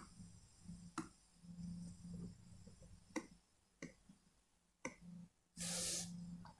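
Faint room tone with a low hum and a few soft, scattered clicks from a computer mouse as a slide is scrolled, then a short hiss near the end.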